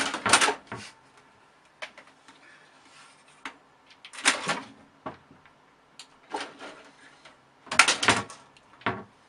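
A cat's claws and paws scrabbling and knocking against the side of a computer tower case, in short bursts of scraping and tapping every second or two.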